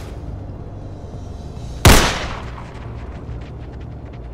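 A single pistol gunshot about two seconds in, with a long echoing tail.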